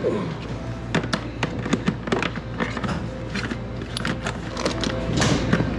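A string of light clicks and knocks as refrigerant hoses, brass fittings and a vacuum pump are handled and packed into a plastic bucket, over steady background music.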